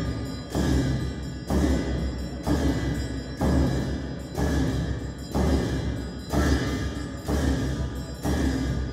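Tibetan ritual frame drum (nga) beaten steadily about once a second with its curved beater, nine beats in all, each deep stroke with a bright ringing that dies away before the next.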